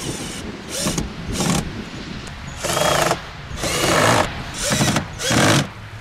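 Cordless drill driving screws into a wooden cat house in a run of about six short trigger bursts, the motor whining up and down with each.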